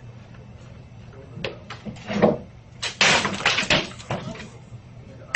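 Low room hum, then from about a second and a half in a run of knocks and bangs on an office desk and computer, with a heavier thump, then a dense burst of loud banging and clattering a little past halfway.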